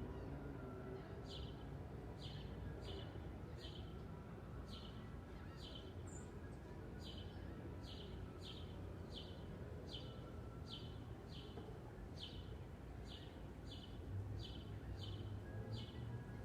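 A single songbird repeating the same short, sharp chirp over and over, a little more than once a second, over a steady low background rumble.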